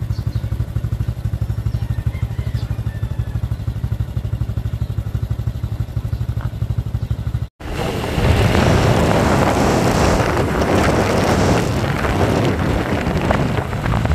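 Motorcycle engine idling with a steady, even pulse. After a sudden cut about halfway through, the bike is riding along and wind buffets the microphone over the engine, louder than before.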